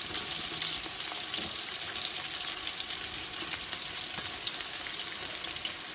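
Sliced red onions frying in hot ghee and coconut oil: a steady sizzle with fine crackles.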